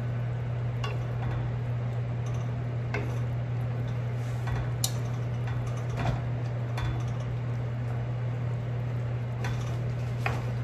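A wooden spatula stirring thick cream sauce with shrimp in a nonstick frying pan, making scattered scrapes and light clicks against the pan, over a steady low hum.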